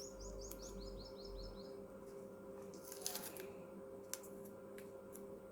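A bird sings a quick run of about nine short, high, downward-sliding chirps in the first two seconds, followed by a few faint clicks from the screen and packaging being handled, over a steady faint hum.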